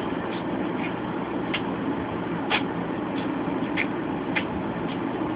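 Domestic cat sneezing again and again, about eight short sneezes in quick, irregular succession, over a steady low hum.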